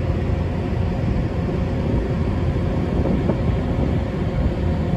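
Steady low rumble on the open deck of a moving car ferry: wind buffeting the microphone over the hum of the ship's engines.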